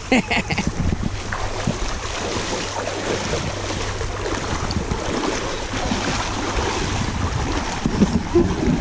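Shallow creek water rushing and splashing steadily as people wade and a small child splashes and swims through the current.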